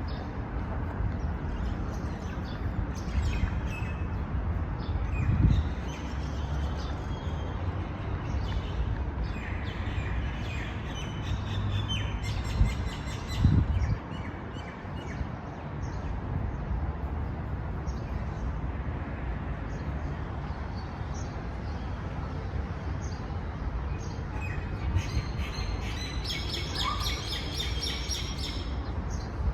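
Several birds chirping and calling in quick runs, busiest near the end, over a steady low rumble. Two dull thumps stand out, one about five seconds in and another about thirteen seconds in.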